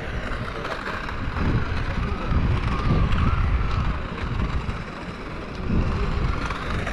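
Strong wind buffeting the microphone: a gusty low rumble that swells and eases, loudest a little after the middle.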